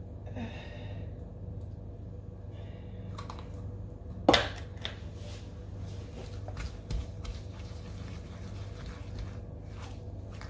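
Light clicks and taps of utensils and containers being handled while mixing, with one sharper knock about four seconds in, over a steady low hum.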